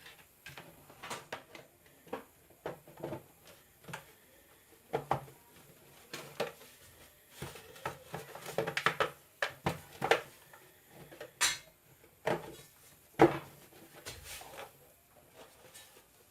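Irregular clicks, knocks and clatter of plastic parts being handled as the cover is fitted back onto the mixer grinder's body.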